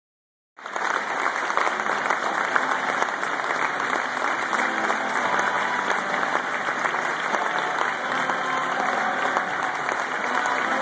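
A large crowd applauding steadily. It begins about half a second in.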